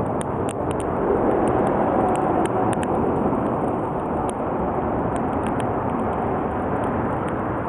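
Wood campfire crackling, with scattered sharp pops over a steady rushing noise.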